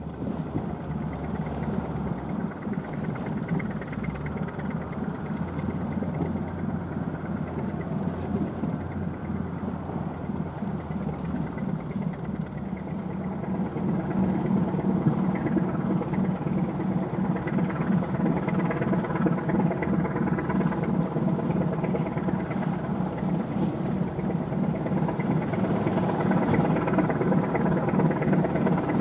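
Large cargo ship's diesel engine running steadily as the wood chip carrier passes close by, getting louder about halfway through as it comes nearer.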